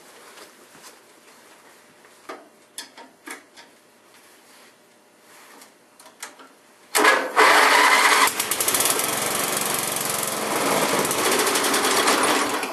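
Sears LT10 mower's 10 hp Briggs & Stratton engine starting suddenly about seven seconds in and running for about five seconds before dropping away near the end, after light clicks and taps of tools. It is a first start after sitting some fifteen years, and it runs rough and rich, needing carburetor work.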